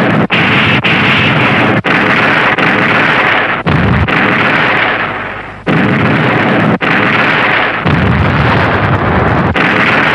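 A run of loud explosion sound effects from Showa-era tokusatsu productions, played back to back, each noisy blast cut off abruptly before the next begins. One blast about four seconds in fades away over a second and a half instead of stopping short.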